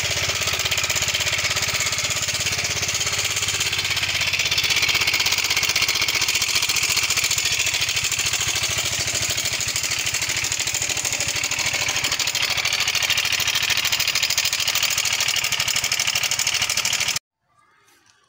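Yamaha Mio 125 scooter's 125 cc single-cylinder engine running with a fast, even ticking rattle, "teka-teka-teka", which the mechanic traces to a weakened cam chain tensioner letting the cam chain slap. The sound cuts off abruptly about a second before the end.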